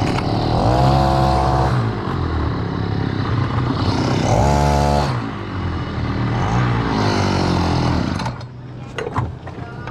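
Brush-cutter engine driving a long-tail propeller shaft on a small boat, running hard, its pitch rising and falling twice as the throttle is worked. A little past eight seconds it drops back and goes quieter.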